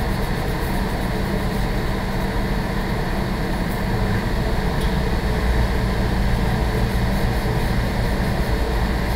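Building ventilation running, a steady low hum with an even hiss above it.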